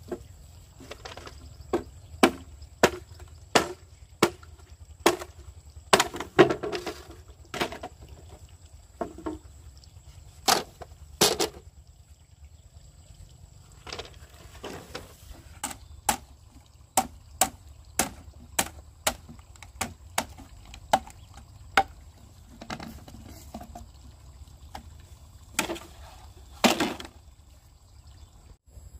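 Bamboo poles being chopped with a blade: sharp woody knocks, about one or two a second, coming in runs of several strokes with short pauses between them.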